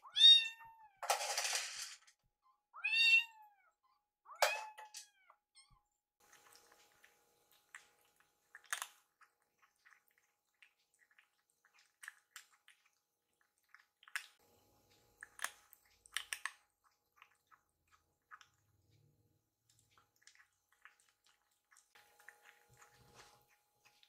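Kittens meowing: three or four short, high calls that rise and fall in pitch, with a brief rush of noise between the first two. After that come faint, scattered clicks and smacks of the kittens eating from their food bowls.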